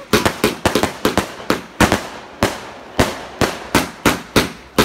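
A 100-shot firework cake firing: a rapid, irregular string of sharp bangs, about four a second.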